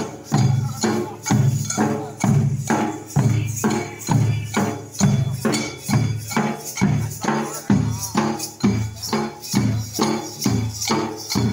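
Dollu Kunitha drumming: several large dollu barrel drums beaten with sticks in a fast, loud, driving rhythm of heavy beats, about two a second, with lighter, sharper strokes between them.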